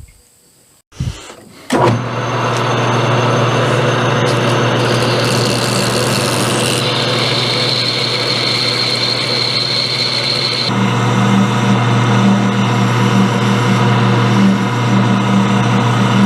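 Metal lathe switched on about two seconds in and then running steadily while a grooving cut is made in a steel part to part it off. A high whine rises for a few seconds in the middle, and about eleven seconds in the running sound grows fuller.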